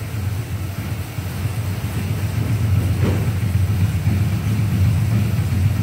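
Fan-type air bike being pedalled hard, its fan whooshing in a steady rushing pulse that builds in loudness over the first couple of seconds as the fan spins up, then holds.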